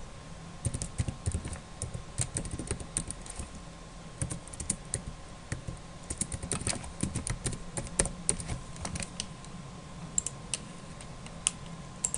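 Computer keyboard keys clicking in quick runs as a name is typed, followed by a few separate clicks near the end.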